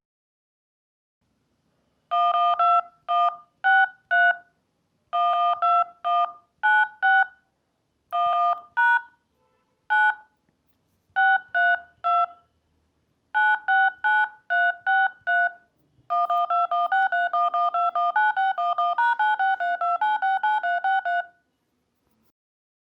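Touch-tone telephone keypad dialing: short two-tone DTMF beeps in groups of four or five, then a fast run of many beeps for about five seconds before stopping.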